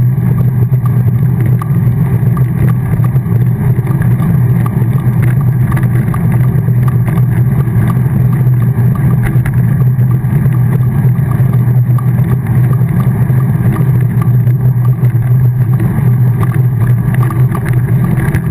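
Vehicle engine running at a steady cruise, with wind and road noise, heard from a camera mounted on the moving vehicle: a loud, even drone that holds the same pitch throughout.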